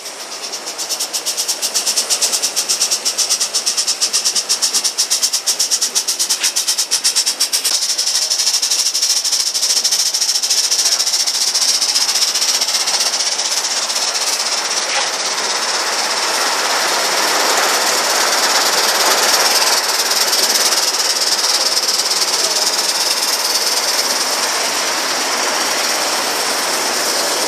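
Gauge 1 live-steam model train running on its track: rapid clicking of wheels over the rails for the first several seconds, then a steady hiss with rolling rail noise.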